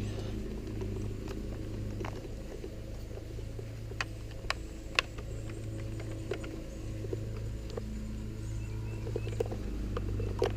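Scattered light clicks and taps from handling wiring and plastic parts on a motorcycle, a sharper click about five seconds in, over a steady low hum.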